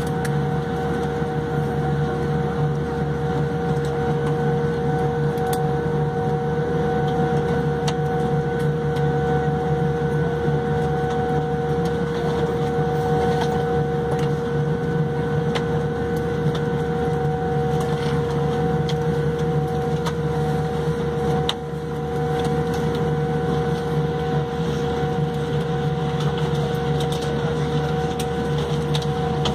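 Steady cabin noise inside a Boeing 787-8 airliner during taxi: the engines at idle and the air systems give a constant low hum with several steady whining tones.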